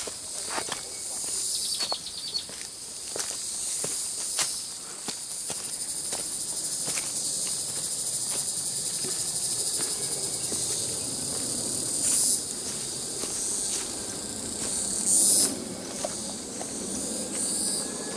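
A steady, high-pitched chorus of insects buzzing in the forest, with two brief louder buzzes about twelve and fifteen seconds in. Footsteps crunch on the dry leaf litter of the trail, mostly in the first few seconds.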